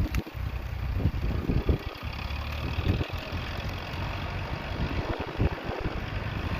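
Gleaner M2 combine running steadily, a low engine hum.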